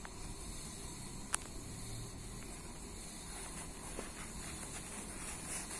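Faint rustling and rubbing of hands handling a Nike Revolution 4 running shoe's fabric mesh upper, with one sharp click a little over a second in.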